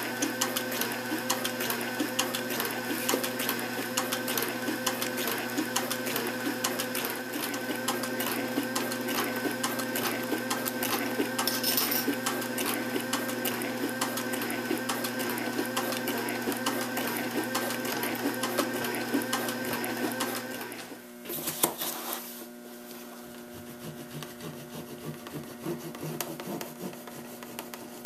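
Cobra Class 4 leather sewing machine running steadily, its needle stitching thick veg-tan leather with rapid, even strokes over a motor hum. It stops about three quarters of the way through, and a quieter rubbing follows.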